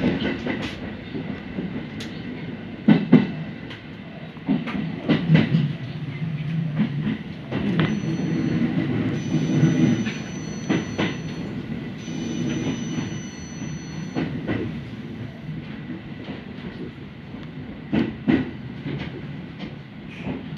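A Kintetsu express train pulls out from the next track: its wheels clack over the rail joints over a low rumble. A thin high-pitched whine runs for several seconds midway.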